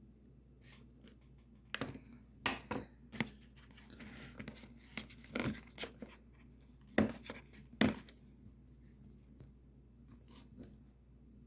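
Scissors cutting and tearing at the tape on a cardboard box: an irregular run of snips, scratches and tearing, the sharpest snaps falling between about two and eight seconds in.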